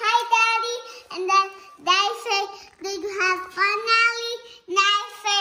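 A child singing in a high voice, holding notes in short phrases with brief pauses between them.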